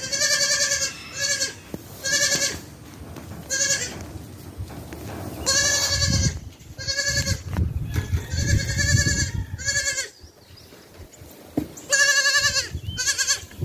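Two-day-old goat kid bleating over and over: about ten high, wavering bleats, some short and some drawn out, with gaps of a second or two between them.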